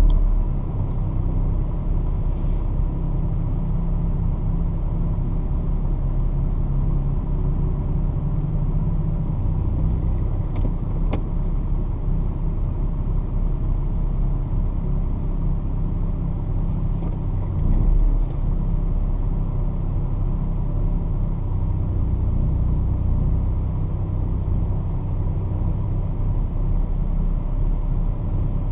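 Toyota 2GR-FE 3.5-litre V6, swapped into a mid-engine MR2, idling at a standstill, heard from inside the cabin as a steady low sound. A single sharp click comes about eleven seconds in, and the sound swells briefly a few seconds before the end.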